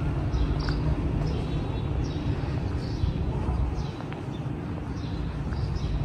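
Small birds chirping repeatedly in short high calls over a steady low rumble of city traffic.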